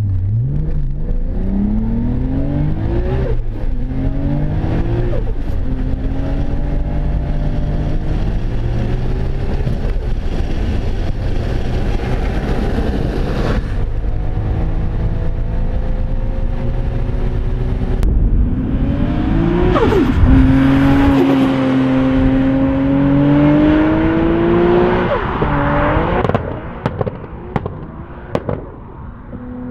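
Nissan Skyline GT-R R32's twin-turbo RB26DETT straight-six under full-throttle acceleration through the gears. The engine pitch climbs in each gear and drops at each upshift, the climbs growing longer in the higher gears. Near the end it is heard from outside and quieter as the car pulls away.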